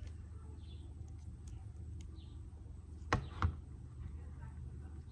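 Two sharp clicks about three seconds in, a third of a second apart, with faint small ticks, over a low steady hum, as a Shimano Deore 11-speed rear derailleur is handled while its clutch is checked for friction.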